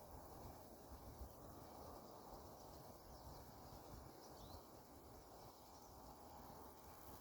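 Near silence: faint outdoor background noise, with one faint high chirp about four seconds in.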